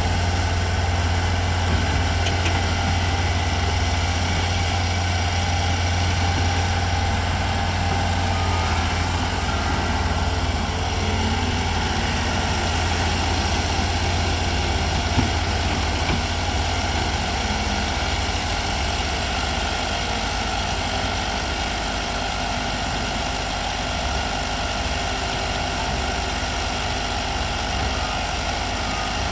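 Heavy equipment's diesel engines running steadily with a low hum, easing slightly in level after about ten seconds.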